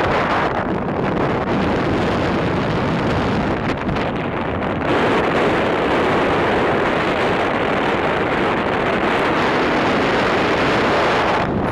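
Strong wind buffeting the microphone, a steady rushing noise that gets louder about five seconds in.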